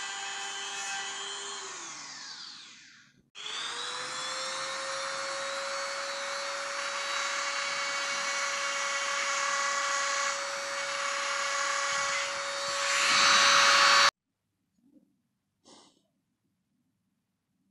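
Handheld rotary tool running with a steady whine, spinning down about two seconds in. After a short break it starts again and climbs to a higher steady pitch as a small bit grinds and drills into a dark natural stone, getting louder near the end before it cuts off abruptly.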